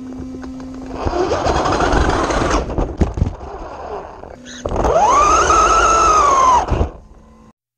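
Radio-controlled buggy heard from a camera mounted on it: a noisy stretch of rolling and rattling, a couple of sharp knocks about three seconds in, then the motor's whine rising in pitch, holding, and falling away near the end.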